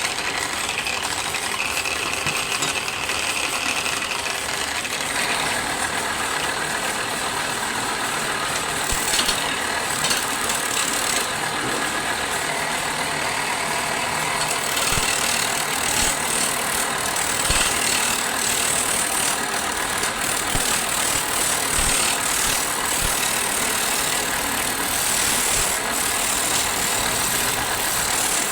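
Wood lathe running steadily with a continuous noisy whirr.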